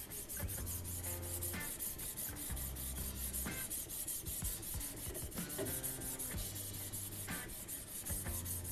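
Medium-grit sharpening stone on a guided sharpener's arm being stroked rapidly back and forth across the steel edge of an ice-drill blade: a steady, even scraping of abrasive on steel.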